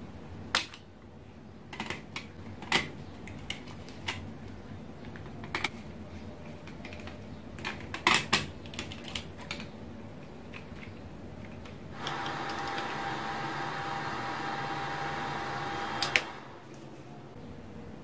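Scattered sharp clicks and taps as test leads and wire connectors are unplugged and refitted on a relay test board, moving the supply from an LY4N relay coil to an LY2N one. From about twelve seconds in a steady buzzing hiss runs for some four seconds and stops with a quick double click.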